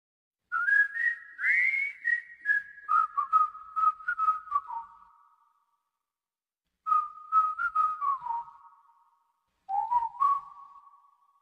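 A whistled tune in three short phrases with brief pauses between them. Its notes step and slide downward, each phrase ending in a fading ring, with light clicks along the notes.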